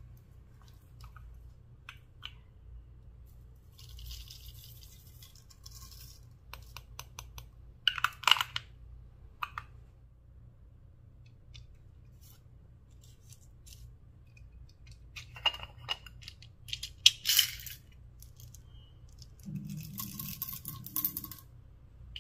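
Small plastic containers handled and snapped open, with scattered clicks and a few sharper snaps, and two spells of sequins and small beads being shaken out into a glass dish of clear slime, about four seconds in and again near the end.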